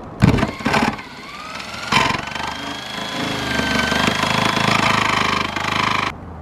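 Corded jigsaw with a Bosch metal-cutting blade sawing through the ribbed sheet-steel roof of a van. It starts in a few short bursts, then cuts steadily for about four seconds and stops suddenly near the end.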